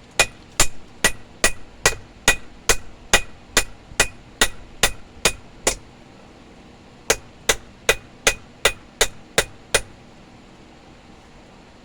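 Blacksmith's hand hammer striking hot steel stock on an anvil, squaring the bar: a steady run of about fourteen blows at a little over two a second, each with a brief metallic ring, then a pause of over a second and about eight quicker blows.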